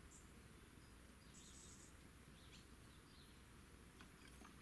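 Near silence: faint outdoor ambience with a few short, high bird chirps, the clearest about a second and a half in, and a couple of faint ticks near the end.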